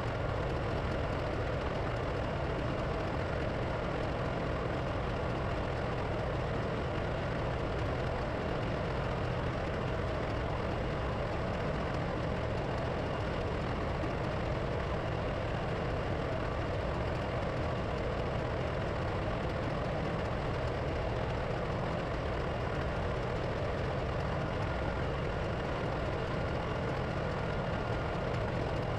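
Steady drone of running diesel engine machinery in a ship's engine room, even and unchanging throughout.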